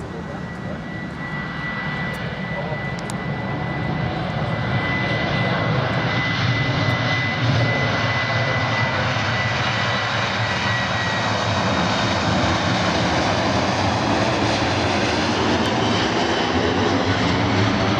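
Boeing 737-700's CFM56-7B turbofan engines at takeoff thrust during the takeoff roll, growing louder over the first few seconds as the jet nears and then holding steady. A thin, steady high whine runs through the first half and fades out.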